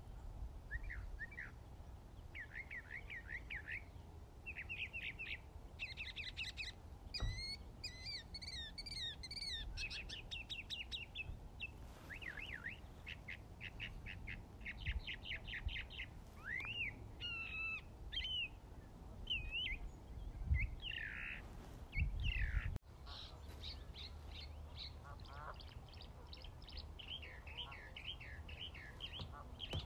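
Small songbirds chirping and singing, a run of varied short trills and whistled phrases one after another, over a low, steady rush of stream water.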